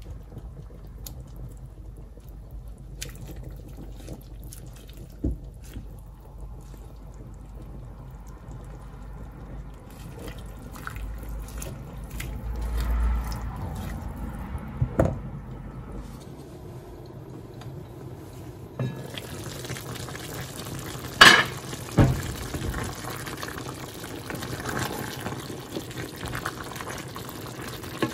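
Water simmering in a pot as kale is stirred with a spatula, with occasional knocks against the pot. Two louder, sharp knocks come in quick succession past the middle.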